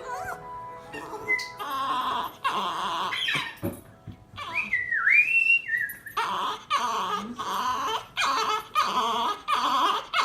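Dog singing along: a run of short, wavering howls, with music playing. About halfway through there is a high tone that slides down and back up.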